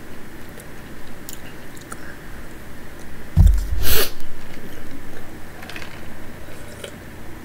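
Close-up chewing and mouth sounds of someone eating pozole, with small clicks of a spoon. A loud low bump and a sharp knock come about three and a half seconds in, as the red plastic cup is lifted close to the microphone.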